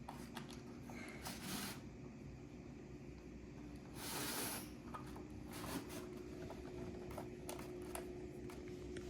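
Faint clicks and taps of small plastic kit parts and fasteners being handled and tightened by hand, with two short rustles, one about a second and a half in and a louder one about four seconds in.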